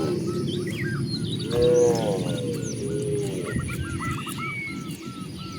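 A cow mooing, one drawn-out call about a second and a half in and a fainter one soon after, with birds chirping and calling around it, including a quick run of short repeated calls near the end.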